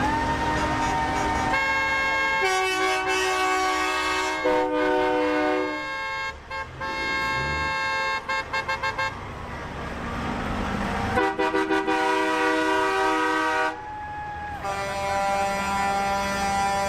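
Vehicle horns honking. There are long held horn blasts, with several pitches sounding at once, and a run of short quick toots about six to nine seconds in.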